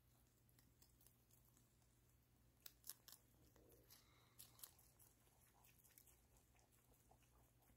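Two lop-eared rabbits chewing and tearing fresh lettuce leaves, a faint crisp crunching with a few sharper crunches around three and four and a half seconds in, over a low steady hum.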